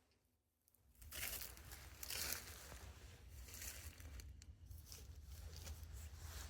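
Footsteps rustling and crunching through dry leaf litter, with twigs and clothing brushing, starting about a second in and going on irregularly.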